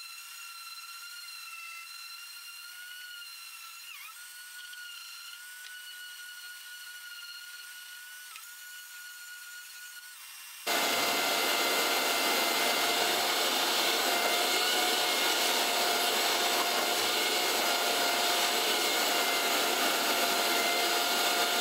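Random orbital sander with 80-grit paper working Baltic birch plywood edges: a steady high motor whine that dips briefly in pitch a few times as it is pressed into the wood. About halfway through, a much louder steady rushing sets in and holds, the sander running with its attached shop vacuum pulling off the dust.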